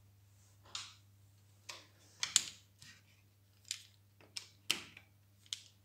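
Irregular sharp plastic clicks and knocks, about eight of them, from handling a disassembled Nilfisk G3 pressure-washer spray gun and a hand tool on a table, the loudest about two and a half seconds in. A faint steady low hum lies underneath.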